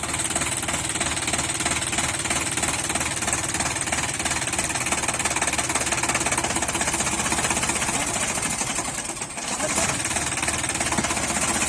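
Sonalika 45 HP tractor's diesel engine running steadily with a fast, even beat, dipping briefly about nine seconds in.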